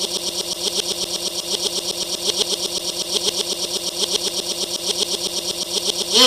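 A tiny fragment of sound, apparently a voice, repeated over and over several times a second in an edited stutter loop, so that it buzzes like a machine.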